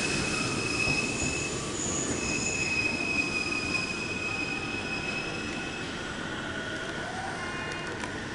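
Steel train wheels squealing on the rails: thin, high-pitched tones that break off and start again, over the low rumble of a train running.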